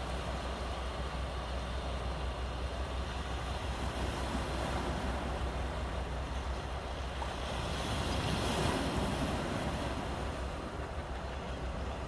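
Small waves breaking and washing up onto a beach of large rounded stones: a steady surf hiss that swells to its loudest about eight to nine seconds in, over a low rumble of wind on the microphone.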